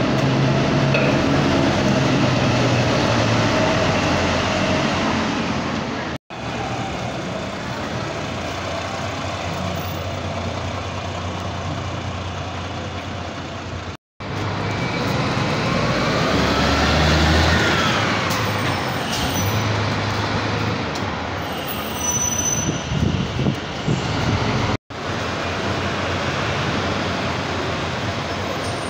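Keio city buses' diesel engines running as they move through a bus terminal and pull away, in several short clips joined by abrupt cuts. A whine rises and then falls away a little past halfway.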